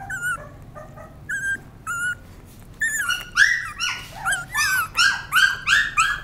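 Twenty-five-day-old puppy whining and squealing in short high-pitched cries while being syringe-fed milk. The cries are few at first and come about two a second from about halfway through.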